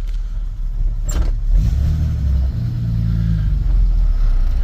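1967 Chevy C10's 250 cubic-inch straight-six, fitted with headers, running, heard from inside the cab. There is a single sharp click about a second in.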